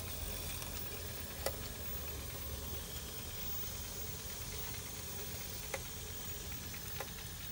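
VCR running with a tape loaded: a steady mechanical hum and hiss from the spinning head drum and tape transport, with a few faint clicks.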